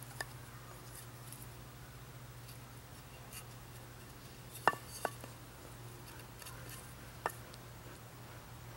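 A few light, sharp clinks from a steel knife blade (Bark River Bravo 1.5) being handled and set against a board of basswood, the loudest two about half a second apart near the middle; a steady low hum underneath.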